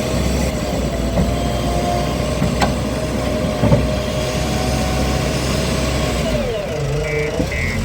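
Heavy machinery engine running steadily, its pitch dipping and then recovering about six and a half seconds in.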